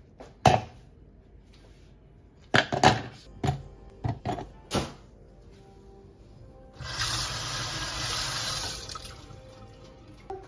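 Ice cubes and frozen fruit dropped one after another into a plastic Nutribullet blender cup: a hard knock about half a second in, then a quick run of knocks and clinks over the next few seconds. About seven seconds in comes a rushing noise like running water, lasting about two seconds.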